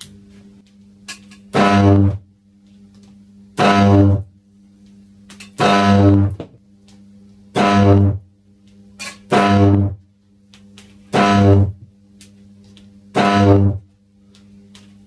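High-voltage arcs drawn from a supply of eight microwave oven transformers with eight resonance capacitors on each side. There are seven loud, deep buzzing discharges about two seconds apart, each lasting about half a second, with a low steady transformer hum between them.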